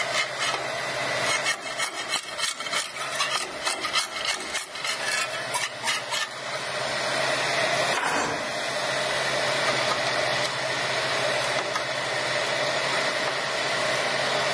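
Steady whirring hum of a MakerBot Replicator 2 3D printer's fans running. For the first few seconds a rapid run of scraping clicks sounds over the whir, then the whir goes on alone.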